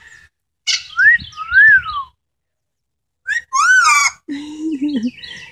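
Amazon parrot whistling: two rising-and-falling whistles about a second in, then a louder arching whistle a little past three seconds, followed by a lower, level-pitched call near the end.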